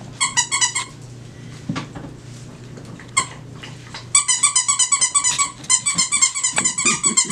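Seven-week-old standard dachshund puppy yapping in short, high-pitched yips: a quick run of yips just after the start, then rapid, almost unbroken yipping from about four seconds in.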